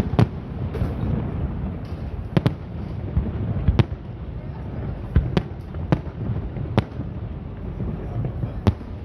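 Fireworks display: separate sharp bangs of bursting fireworks, about seven in a few seconds at uneven spacing, over a steady low rumble.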